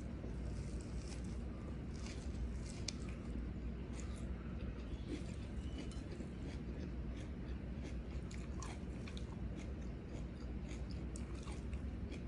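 Close-miked chewing and mouth sounds of a person eating rice and raw leafy greens by hand, with many small wet clicks and crunches, over a low steady hum.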